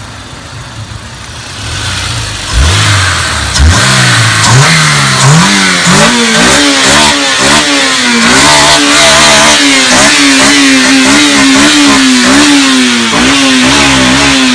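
2001 Honda S2000's 2.0-litre F20C four-cylinder engine revved while the car stands still. From about two and a half seconds in it is blipped again and again, each rev climbing higher. From about six seconds on it is held up near its 9,000 rpm redline, the pitch wavering up and down.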